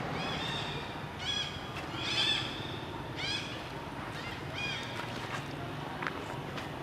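A monkey giving a series of about five short, high-pitched squealing calls, each rising and falling in pitch, spread over the first five seconds.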